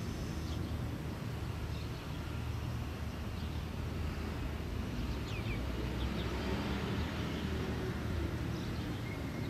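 Outdoor background noise: a steady low rumble, with a few faint, short bird chirps.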